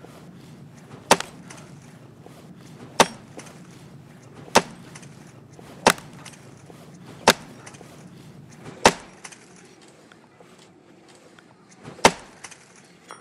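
An axe chopping and splitting a log: seven sharp strikes, one every second and a half or so, with a longer pause before the last.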